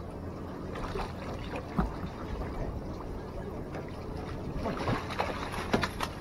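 Water splashing as a hooked salmon thrashes at the surface beside a small fishing boat, the splashes coming thicker in the second half as it reaches the landing net. A steady low hum of the boat's outboard motor runs underneath.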